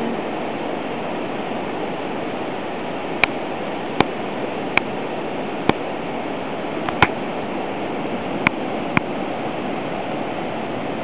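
Steady rushing of ocean surf, with several short sharp clicks scattered through it.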